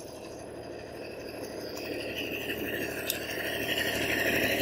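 Farm tractor's engine running, growing steadily louder as the tractor approaches.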